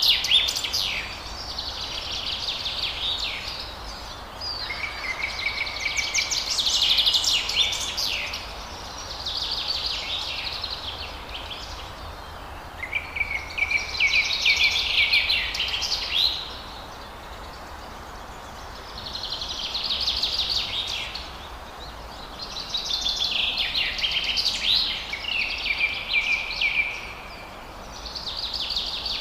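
Forest songbird singing: a run of high, rapid trilled song phrases, each two to three seconds long, with short pauses between them. Several phrases open on a held whistle before breaking into the trill. A faint steady hiss of background noise runs underneath.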